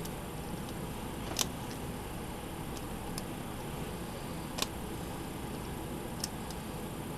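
Small metallic clicks and ticks of a homemade lock pick and tension tool working the pin stack of a Master Lock No. 3 padlock, pins clicking as they are lifted. There are three sharper clicks and several fainter ticks over a steady low background hiss.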